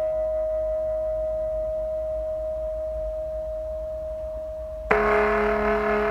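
A long, resonant ringing tone, slowly fading. About five seconds in it breaks off abruptly into a louder, lower ringing tone with many overtones.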